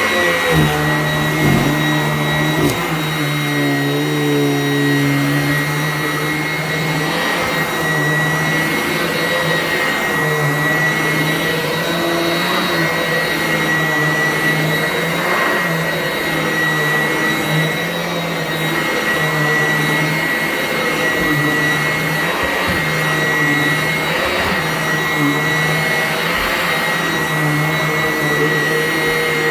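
Sanitaire upright vacuum cleaner running steadily with a high motor whine, its lower hum swelling and dipping every second or two as it is worked across the floor.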